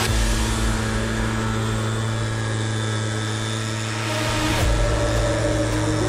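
Husqvarna petrol backpack leaf blower's two-stroke engine running steadily, with an even hum and air rush.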